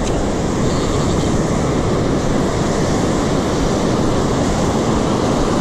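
Surf washing up on the beach: a steady, unbroken rush of breaking waves and wind.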